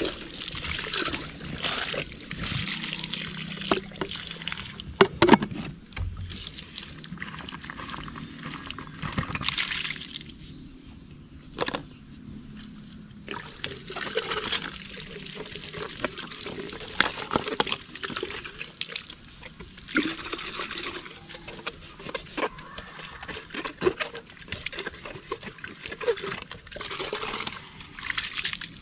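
Water trickling and splashing from a tap on a blue pipe, with scattered knocks and clicks of plastic poultry waterers being handled.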